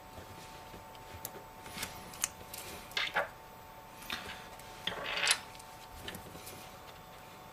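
Small tools and phone parts being handled during iPhone disassembly: scattered light clicks, with two short scrapes about three and five seconds in. A faint steady hum runs underneath.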